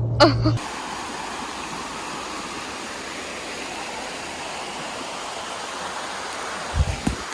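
Creek water rushing steadily over rocks. A brief sliding voice-like sound comes right at the start, and a few low thumps near the end.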